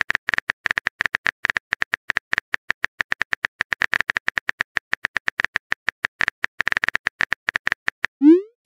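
Simulated phone-keyboard typing clicks from a texting-story animation, a fast run of short sharp ticks, about ten a second, one per letter as a long message is typed. They stop just before the end, and a quick rising swoosh follows as the message is sent.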